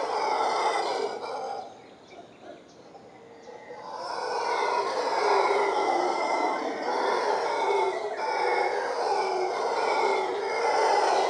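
Mantled howler monkeys howling in a long, continuous chorus. The howling drops away briefly about two seconds in and swells back up around four seconds.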